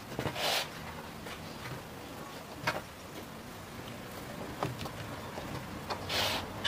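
Hands handling soft bread dough on a wooden tabletop: shaping dough balls and setting them down on a plate, with a few short brushing or rustling sounds and a couple of light taps over faint steady background hiss.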